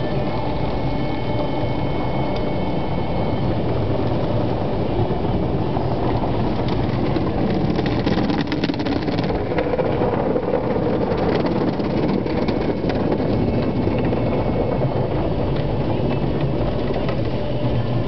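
Automatic car wash machinery running: a steady, dense rumble with a hiss over it that holds at an even level.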